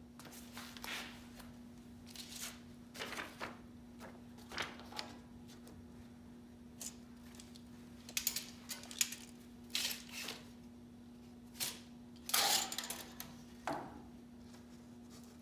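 Scattered short rustles and clicks from gloved hands handling a cut-out template and a steel tape measure against a car frame rail, over a faint steady hum.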